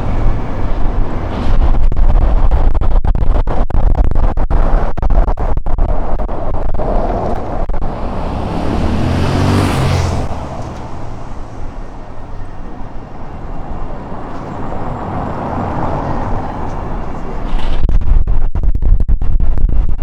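Gusty wind buffeting the microphone in heavy, rumbling blasts, easing off in the middle and returning near the end. About halfway through, a vehicle passes close by, its engine and tyre noise swelling and then cutting off.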